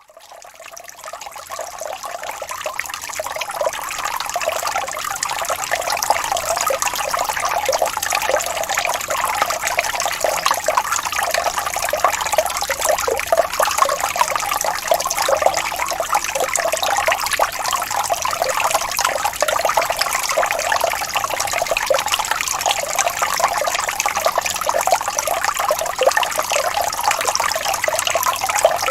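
Small waterfall: water splashing and trickling steadily in a dense, even rush. It fades in over the first few seconds.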